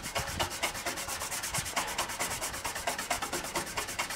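Toothbrush scrubbing the plastic case of a 1991 Packard Bell Legend 386X computer with plain water: quick, even back-and-forth scratchy strokes, about seven a second.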